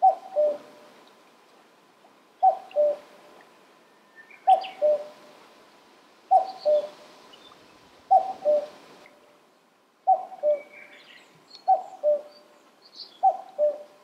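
Common cuckoo calling its two-note "cuck-oo", the second note lower than the first, repeated eight times about every two seconds. Faint high chirps of a smaller bird come in near the end.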